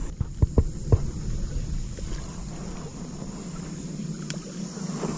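A few quick knocks and bumps of handling in the first second, then the steady rush of water from a small rapid in a forest stream, with a faint high drone over it.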